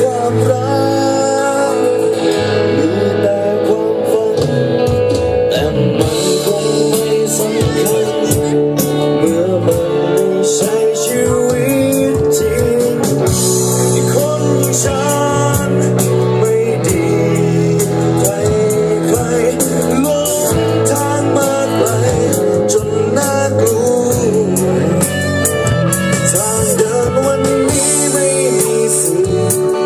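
Live band playing a rock song: electric guitars and drums with a sung vocal line.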